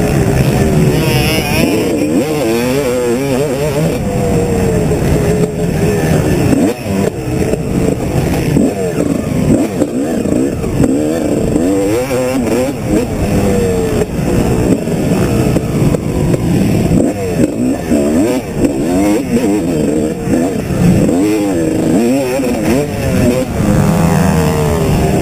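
Motocross dirt bike engine revving hard and easing off over and over, its pitch climbing and dropping every second or two as the rider works the throttle and gears around the track, heard close up from on the bike.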